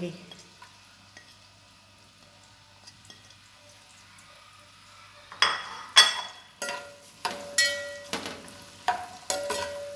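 Sliced onions sizzling faintly in hot oil in an aluminium pot. About halfway through, a metal spoon starts stirring them, knocking and scraping against the pot with a ringing clang roughly every half second.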